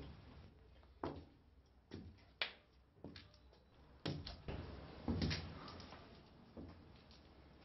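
Footsteps going down hard stairs, a knock roughly every second at an uneven pace, with a heavier double step about five seconds in.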